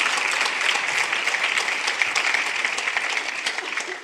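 Audience applauding, a dense, steady patter of many hands clapping that begins to die away at the very end.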